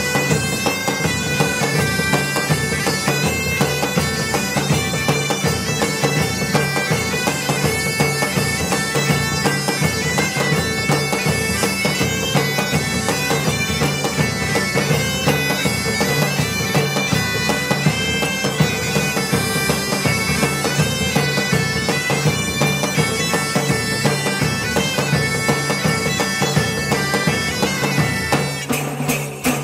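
Bagpipe music: a tune played over steady, unbroken drones, changing to a different piece right at the end.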